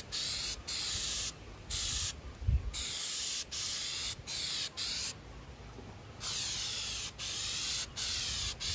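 Aerosol can of Flex Seal liquid rubber spraying in short repeated bursts, about a dozen of roughly half a second each, with a pause of about a second just past the middle. A low thump comes about two and a half seconds in.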